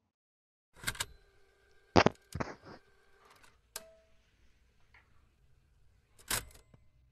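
A series of sharp clicks and knocks at uneven intervals, the loudest about two seconds in, with a faint ringing tone lingering after the first few.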